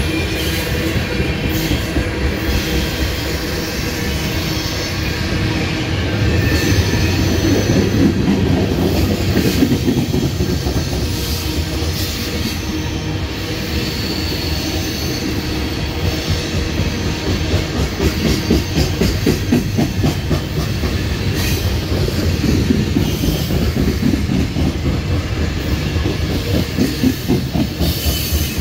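BNSF coal train's loaded-freight gondola cars rolling past close by: a steady rumble of steel wheels on rail with a quick rhythmic clatter over the rail joints, growing more pronounced in the second half, and a faint high wheel squeal now and then.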